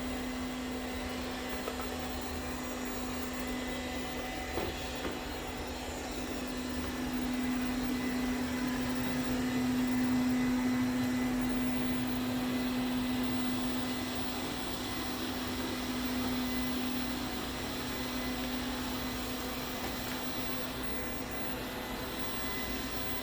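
Ziglint robot vacuum cleaner running: a steady whir with a strong low hum, growing louder around the middle and easing off again, with one small click about four seconds in.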